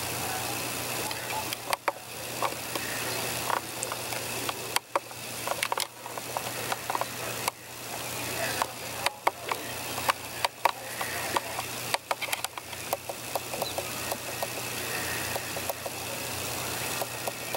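A steady mechanical hum with a thin high-pitched drone over it, broken by a scatter of sharp clicks and knocks between about one and fifteen seconds in.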